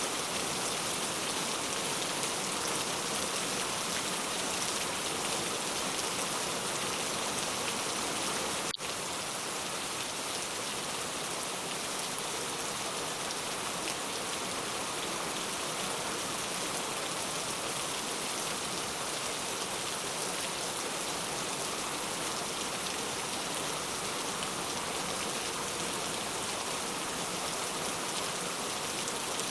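Steady rain falling, an even hiss of countless drops on a surface. About nine seconds in there is a single brief click, after which the rain is slightly quieter.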